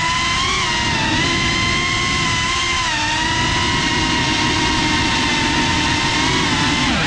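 FPV drone's brushless motors and propellers whining, the pitch drifting up and down with the throttle over a rush of prop wash, with a quick drop and rise in pitch near the end.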